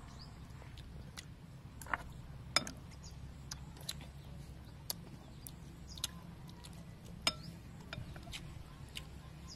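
Metal spoons clinking against a ceramic soup bowl: a few sharp, separate clinks scattered through, over a low steady background rumble.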